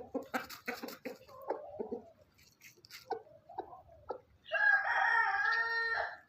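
Short clucking calls from chickens, then, about four and a half seconds in, a rooster crows once: a loud, pitched crow lasting under two seconds.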